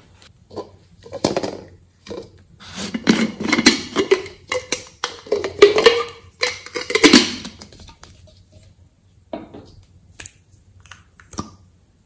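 Hard plastic scraping and clicking as a small plastic tool scrapes and taps the contents out of a plastic container into a glass bowl of slime. It is busiest and loudest in the middle, with a few light clicks near the end.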